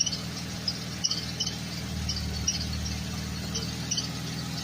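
Buick Enclave's 3.6-litre V6 idling steadily, with the transfer case freshly installed and not leaking. Short, faint, high-pitched chirps come and go over the engine's low hum.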